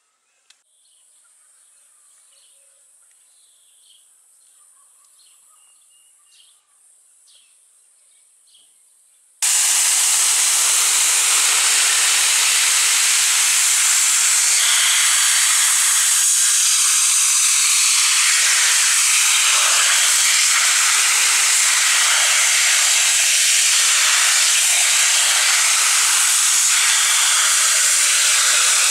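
Pressure washer starts spraying abruptly about nine seconds in, a loud, steady hiss of its high-pressure jet hitting a raw whole chicken. Before it starts, only a faint steady insect buzz with a few high chirps.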